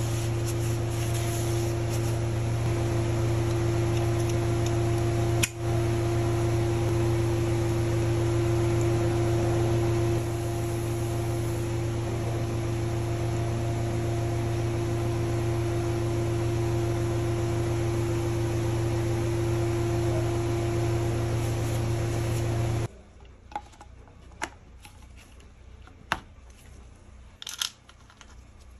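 Steady machine hum with a few fixed tones, like a motor or fan running, that stops abruptly about 23 seconds in. After that it is quiet, with a few light clicks of small engine parts being handled.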